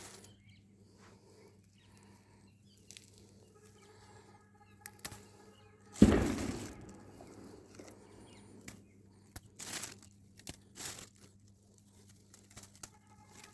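Faint rustling and snapping of tulsi (holy basil) sprigs being plucked by hand, in short scattered bursts, with one loud knock about six seconds in.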